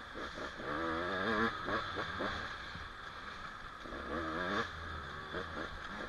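Youth dirt bike engines revving up and down in several wavering bursts over a steady background drone.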